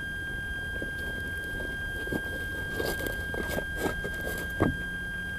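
A steady, high electronic whine runs throughout. A few faint small splashes and taps of water lapping against the floats come in the second half, with one soft knock near the end.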